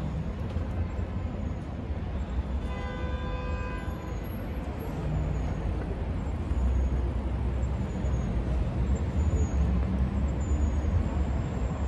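City square ambience: a steady low rumble of distant traffic. About three seconds in comes a brief pitched squeal lasting about a second, and faint short high chirps recur through the second half.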